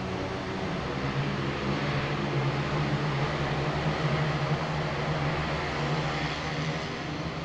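Low, steady hum of a motor vehicle's engine, growing louder in the middle and easing off near the end.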